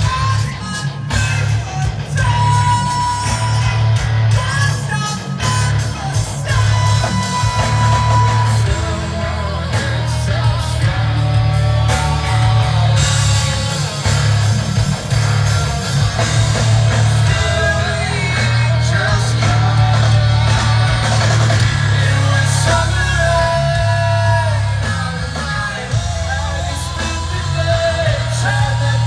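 Hard rock band playing loud, with electric guitar and bass and a singer's yelled vocals over a heavy low end.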